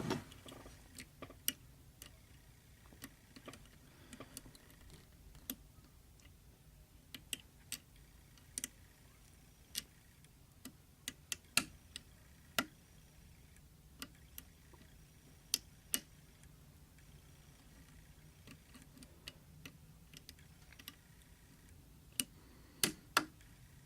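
Irregular metallic clicks and ticks of a hook pick lifting the spring-loaded levers of a seven-lever safe lock under tension, roughly one click a second with a quick pair near the end.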